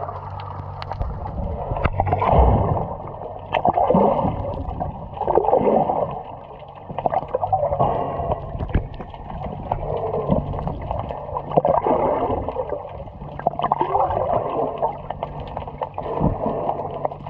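Water sloshing and gurgling against an underwater camera, swelling every second or two, with scattered small clicks.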